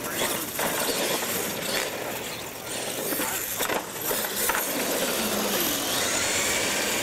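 Radio-controlled monster trucks racing on concrete: motors whining and tyres rolling, with several sharp knocks as the trucks bounce over the lane ramps. Near the end the motor whine rises and falls in pitch.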